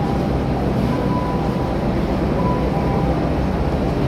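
Delhi Metro train running, a steady rumble of wheels on the rails, with a faint whine coming and going.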